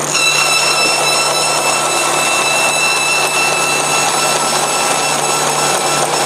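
Bandsaw with a one-inch honeycomb-style blade (a knife and hook-tooth hybrid) cutting into adhesive-backed foam tape. A steady machine hum runs throughout, and a high, even whine joins in at the very start as the blade is fed into the foam.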